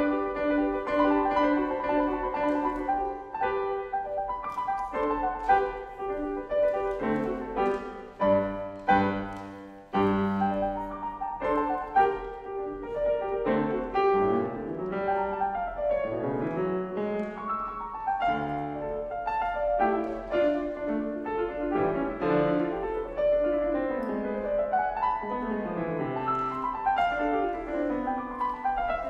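Steinway grand piano played solo. There are a few low, heavy chords with short breaks about eight and ten seconds in, then quick rising and falling runs through the rest.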